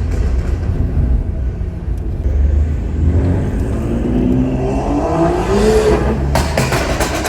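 Tuned BMW's turbocharged engine accelerating hard, its pitch climbing steadily for a few seconds, then a quick string of sharp exhaust pops and crackles near the end.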